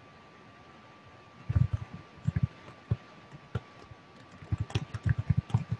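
Typing on a computer keyboard: quick, irregular runs of keystrokes that start about a second and a half in, pause briefly, then pick up again.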